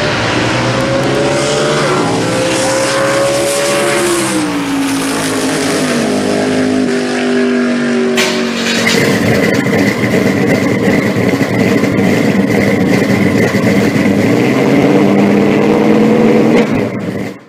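Drag car's engine at wide-open throttle down the strip, its pitch climbing and dropping in steps. About halfway through, a cut to a steadier, denser engine drone with a thin high tone over it, fading out near the end.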